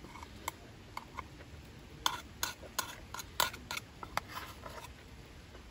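Eating utensils clinking and scraping against a bowl while someone eats a steak rice bowl: a quick, irregular run of light clicks, thickest in the middle.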